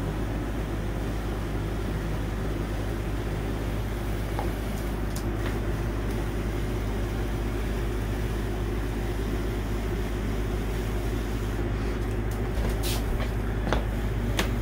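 Steady low machine hum, with a few faint clicks, most of them near the end.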